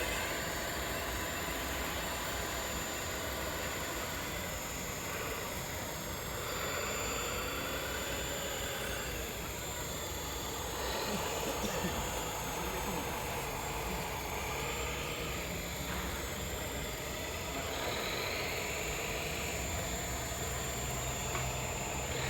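Small electric motors of radio-controlled model trucks and machines whining, rising and falling in pitch as they speed up and slow down, over steady background noise. Near the end a low engine-like hum creeps up in pitch.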